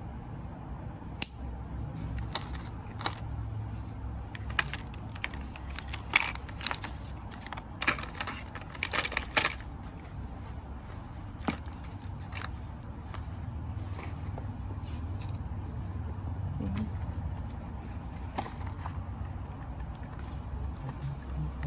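Small cardboard boxes and plastic packaging being handled and opened: scattered clicks and taps, with a short crinkling rustle about nine seconds in, over a low steady hum.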